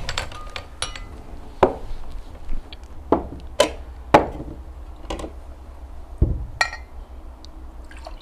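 Drinking glasses and cups clinking and knocking at irregular moments as drinks are served and set down, over a low steady hum.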